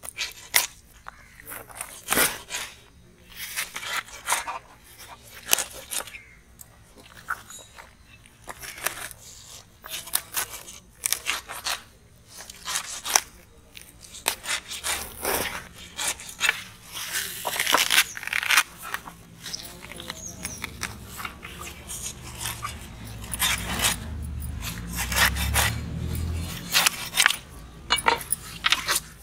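Tough skin of leather jacket fish being torn off by hand: a string of sharp, irregular crackles and ripping clicks. A low rumble runs for several seconds in the second half.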